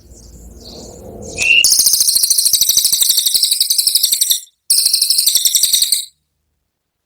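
Cililin songbird giving its 'tembakan' song: a short rising note, then a very fast, high rattling trill in two long bursts with a brief break between them. The recording cuts to silence about six seconds in.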